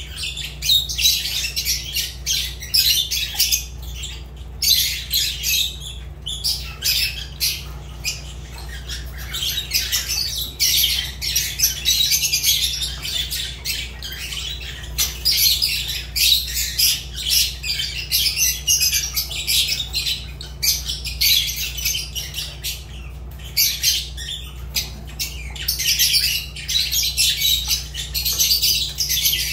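Fischer's lovebirds chattering: a dense, almost unbroken run of high-pitched chirps with brief breaks, over a steady low hum.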